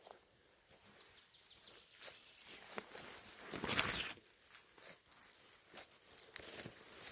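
Irregular footsteps and rustling, with one louder, longer rustle about three and a half seconds in.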